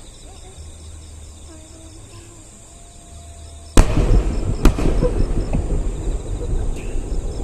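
Fireworks shells bursting overhead: a sudden loud boom about four seconds in, a second sharp bang just under a second later, then continuous crackling and rumbling as more shells go off in the finale barrage.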